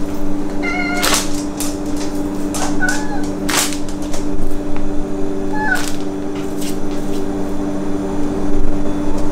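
Sphynx cat meowing three short times while begging for food, over a steady low hum, with a few sharp crackles in between.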